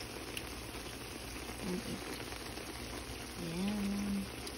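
Sliced mushrooms and onions boiling in their own liquid in a pan: a steady bubbling hiss as the water cooks off.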